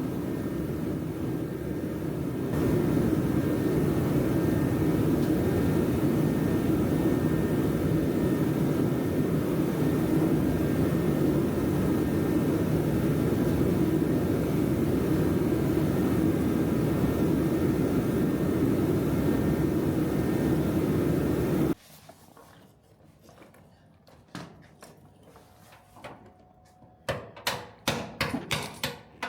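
A loud, steady machine running, cutting off suddenly about three-quarters of the way through. Then a few light clicks and a quick series of sharp metallic knocks and rattles near the end.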